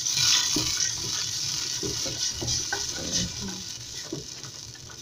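Blended tomatoes sizzling as they hit hot oil and fried onions in a stainless steel pot, with a spoon stirring and scraping through them. The sizzle is loudest at first and dies down over a few seconds.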